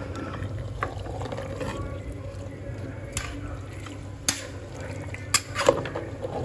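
A spatula stirring mutton and onions in an aluminium pressure cooker: soft wet squelching of the food, with sharp clicks of the spatula knocking the pot about three seconds in and a few more near the end. A steady low hum runs underneath.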